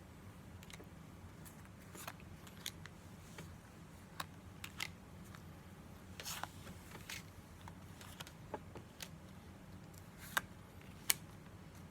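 Pokémon trading cards being handled and flipped through, giving a scattered series of soft clicks and snaps at an irregular pace, with two sharper snaps near the end.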